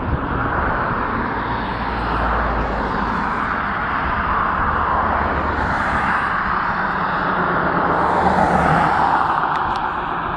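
Cars driving past on the road close by: steady tyre and engine noise that swells slightly as vehicles pass, with wind rumbling on the microphone.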